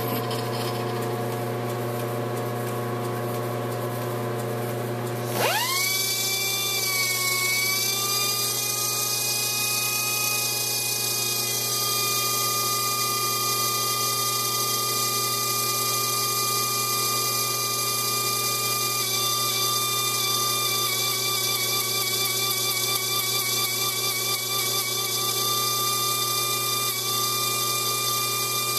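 Metal lathe motor running with a steady hum. About five seconds in, an air die grinder mounted in the tool post spins up with a rising whine and then runs at a steady high whine while grinding a Morse taper adapter to true it.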